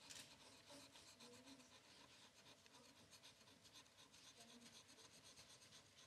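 Faint, rapid scratching as a round plastic scraper disc is rubbed back and forth over a large Triss lottery scratch card, wearing off the scratch-off coating.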